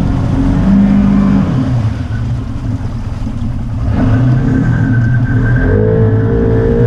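ATV engine running on a trail, its pitch rising and falling with the throttle; a higher wavering tone comes in near the end.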